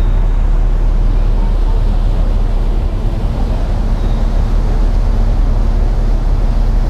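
Sakurajima ferry's engines running with a steady low hum over a broad, even rumble.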